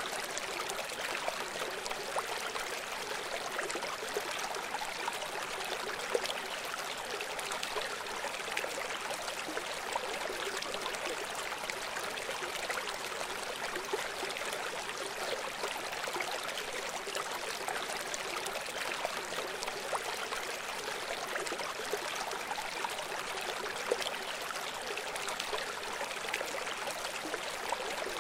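A river flowing steadily, a continuous rushing hiss of water with many small splashes and little low rumble.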